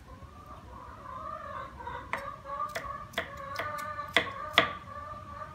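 Irregular sharp clicks and taps, about seven of them, from hands preparing shredded banana blossom over a bowl of water, over faint background voices.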